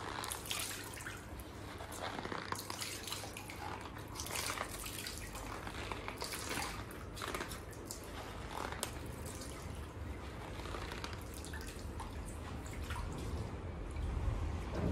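Water spattering and dripping onto the ground in irregular spurts as a wet microfiber cloth is twisted and wrung out by hand.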